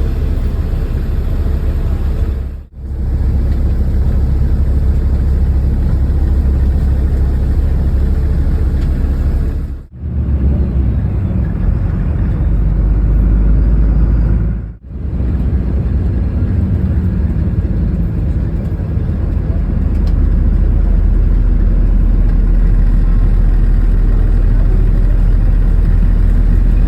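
Passenger airliner cabin noise: a steady low roar of aircraft engines and rushing air, heaviest in the deep bass, breaking off briefly three times.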